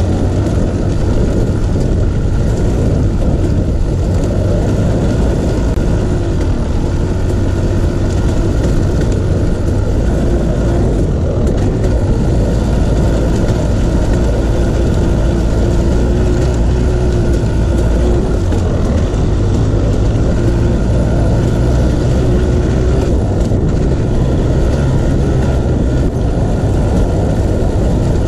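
Off-road vehicle engine running at a fairly steady speed while riding a trail, with wind and trail noise over it.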